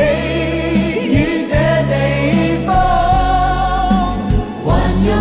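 A song with a sung Chinese vocal over backing music and sustained bass notes; the singer holds long notes, one of them with vibrato through the middle.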